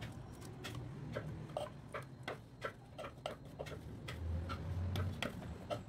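Chopped green masala ingredients dropping from a plastic food-processor bowl into an empty non-stick pot: a string of small irregular clicks and taps, about three or four a second. A low steady hum runs underneath and grows louder about four seconds in.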